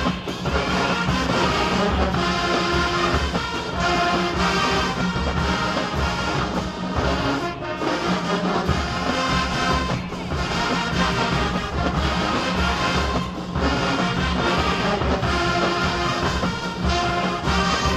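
HBCU-style marching band playing a loud, brass-heavy tune over drums, with short breaks in the sound about eight and thirteen seconds in.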